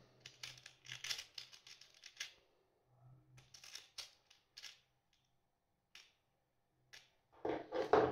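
Small metal screws rattling and clinking in a plastic compartment organiser box as fingers pick through them, in two bursts and then a few single clicks, with a louder clatter of handling near the end.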